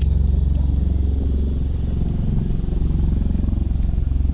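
Boat engine idling steadily with a low, even rumble.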